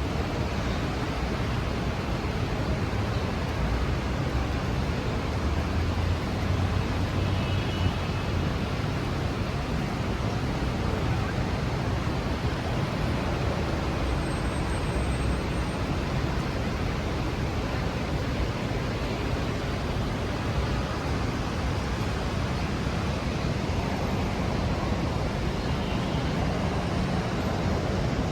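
Steady hiss of rain and traffic on wet city streets, with a low rumble of passing vehicles underneath.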